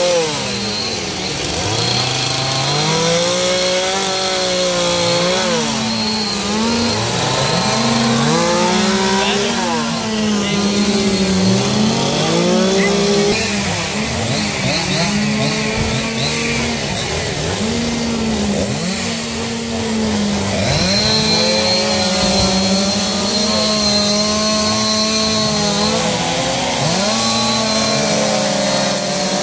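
Gas chainsaws carving wood, their engines revving up and dropping back again and again, with one saw holding a steady high rev for stretches.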